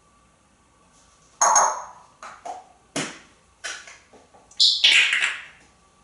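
African grey parrot making a run of short squawks, clicks and chirps, with a high squeak just before a longer, louder call near the end.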